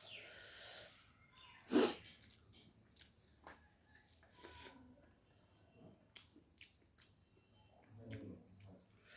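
Close-miked mukbang eating sounds: scattered soft clicks and smacks of chewing rice and fish, with one sharper, louder click about two seconds in.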